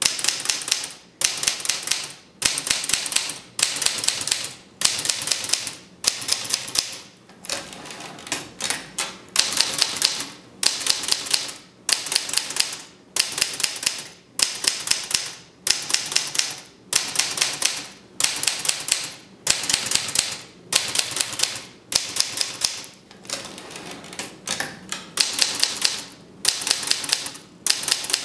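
Olivetti Studio 44 manual typewriter being typed on: rapid type-bar strikes in runs about a second long, with short pauses between them.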